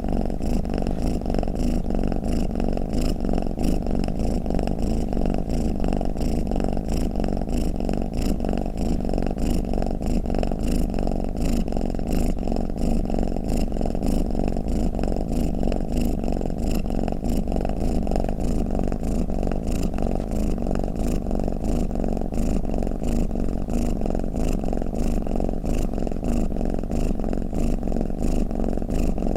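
Domestic cat purring steadily, a continuous low rumble without pauses.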